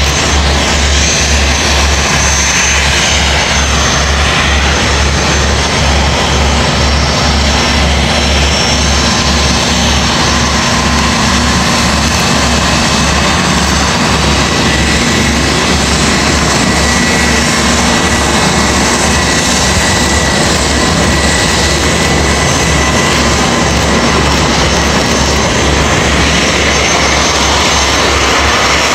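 Business jet's turbofan engines running as it taxis: a loud, steady rush with thin high whining tones over it and a rapid low pulsing underneath.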